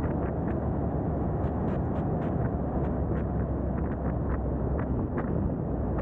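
Steady wind rush on an outside-mounted camera microphone with road and tyre noise from a 2022 Subaru WRX driving at a steady speed. Short sharp clicks come through it every so often.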